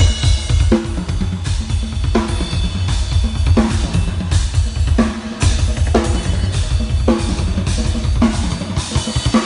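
Drum kit played at a sound check: a steady beat with a snare hit about every three-quarters of a second over busy bass drum and cymbal wash. It starts suddenly and stops near the end, with a brief break in the bass drum about five and a half seconds in.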